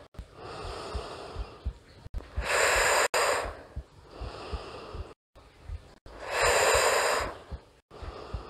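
A woman breathing in time with Pilates leg lifts: two long, loud exhalations about two and a half and six and a half seconds in, with quieter inhalations between, exhaling on each lift.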